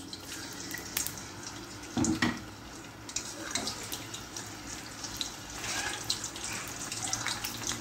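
Tilapia pieces frying in hot vegetable oil in a wok: a steady sizzle with scattered crackling pops. A short louder noise comes about two seconds in.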